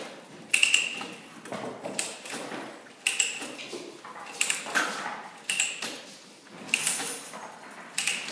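Steel pipe and metal threading tools clinking together: a run of sharp metal-on-metal knocks, irregularly spaced at roughly one or two a second, each ringing briefly.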